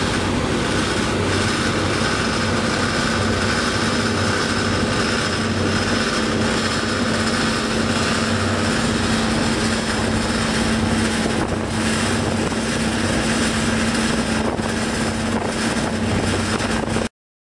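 Steady drone of a ship's engine with a constant hum and a pulsing low throb, under wind on the microphone; it cuts off suddenly near the end.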